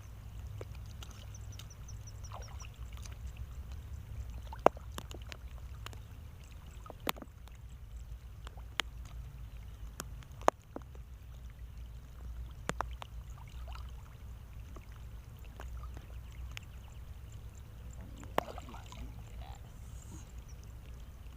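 Water splashing and sloshing at the water's edge while a fish is being landed, with scattered sharp clicks and knocks from handling the tackle over a steady low rumble.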